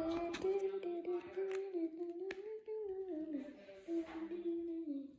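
A child humming a slow, wandering tune in one long unbroken line, with a couple of faint ticks.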